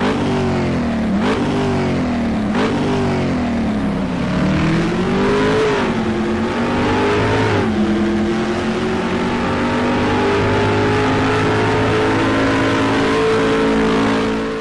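Car engine accelerating hard through the gears: the pitch climbs and drops sharply at each upshift, four times, then holds steady at high revs.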